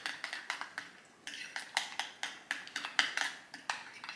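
Metal spoon clinking against a glass bowl while stirring a creamy horseradish sauce: quick rhythmic clinks, about four a second, with a brief lull about a second in.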